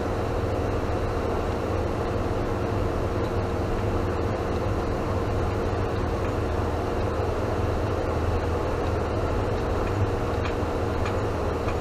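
Motorhome engine and tyre noise heard from inside the cab as it descends slowly: a steady low drone.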